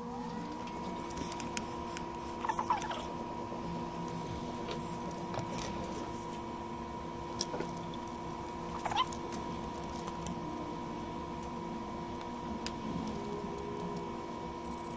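Steady high electrical whine with a lower hum under it, broken by a few short squeaks and clicks.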